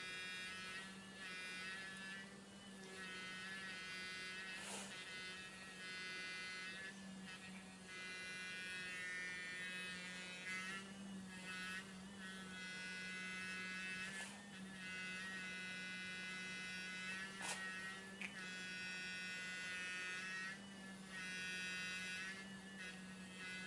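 Electric toothbrush running with a steady hum. Its higher buzz swells and fades as a cat rubs its face against the brush. Three short, sharp sounds break in, the cat sneezing.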